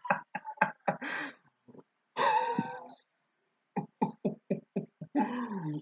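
Wordless vocal sounds: choppy bursts, a longer cry a little over two seconds in, a quick run of about six short bursts like laughter, and a longer cry falling in pitch near the end.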